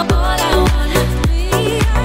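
Background music with a steady dance beat of about four strokes a second over a held bass, and a lead melody that bends in pitch.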